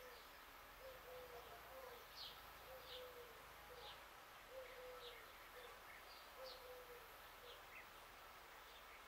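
Faint outdoor birdsong: a bird's low hooting call, a longer falling note and a short one, repeated about every two seconds, with small birds chirping briefly at a higher pitch.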